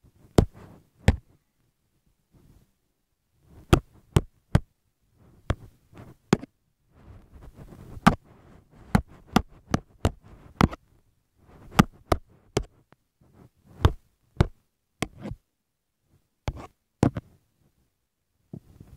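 About twenty sharp knocks and taps of hard objects at an irregular pace, with soft rustling between them and a pause of about two seconds near the start.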